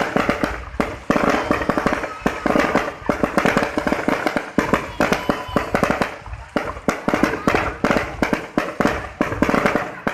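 Fireworks going off in a dense, unbroken barrage of overlapping bangs and crackles, many a second, easing briefly twice midway.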